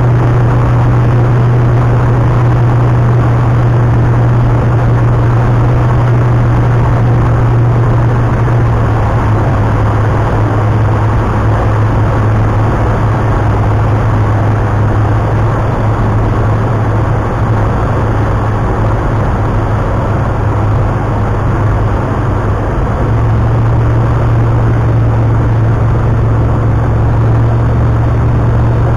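Tecnam Astore's Rotax 912 flat-four engine and propeller in flight, heard from inside the cockpit as a loud, steady drone. The drone eases slightly for a few seconds past the middle, then comes back up.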